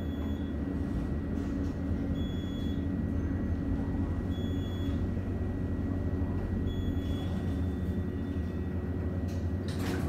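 Elevator car descending: a steady low hum from the car in motion, with a short high electronic beep about every two seconds as it passes each floor, and a click near the end as it arrives.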